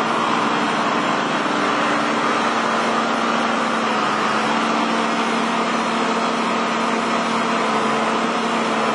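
Gasoline-engine water pump running steadily at a constant speed, an unchanging engine drone.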